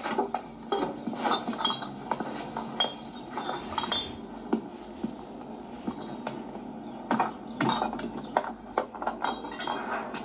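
Irregular clinks and knocks of glass and wooden crates being handled, some clinks ringing briefly.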